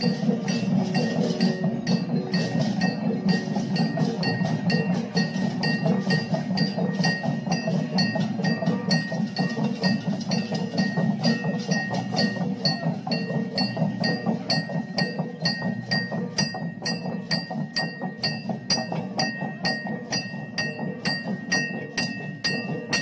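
Balinese okokan parade percussion: massed wooden okokan bells clattering in a fast, steady rhythm, with metallic cengceng cymbals clinking and ringing over the top.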